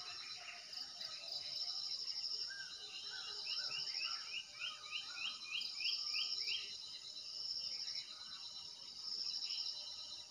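Outdoor ambience of an insect trilling high in repeated phrases of a second or two, with birds calling; around the middle, a bird gives a quick run of rising chirps, about three or four a second.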